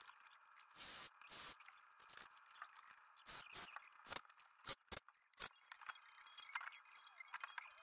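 Faint, scattered clicks and knocks, about a dozen short sharp ones spread irregularly, over a faint steady hiss.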